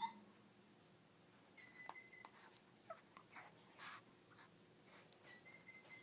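Young African grey parrot making soft, faint sounds: a thin held whistle twice and a run of short clicks and hisses between, after a single click at the start.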